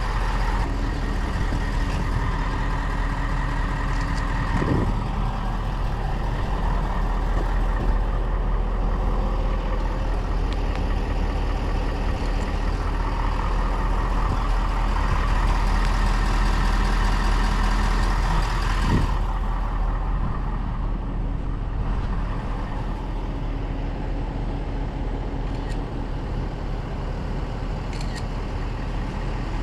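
Truck engine idling steadily, a constant low hum. A hissy upper layer drops away about two-thirds of the way through.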